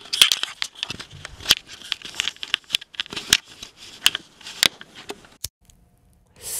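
Scratchy rustling and irregular clicks from hair and hands brushing against the camera and its built-in microphone during close handling. The rustling stops about five and a half seconds in, and a steady hiss starts near the end.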